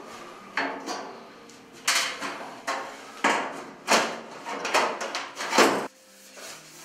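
The sheet-metal back cover of a plasma TV being shifted and set into place on the set, giving a run of about eight knocks and clanks with short rings. The loudest clank comes just before six seconds in, then the knocking stops.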